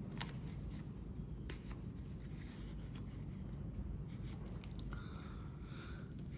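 Faint hand-handling sounds at a workbench: a few light clicks and some rubbing, over a steady low hum.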